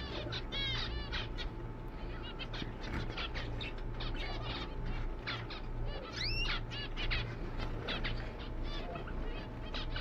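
Small caged finches, zebra finches and canaries, calling over one another: a dense stream of short chirps, with one longer rising call about six seconds in. A low steady hum runs underneath.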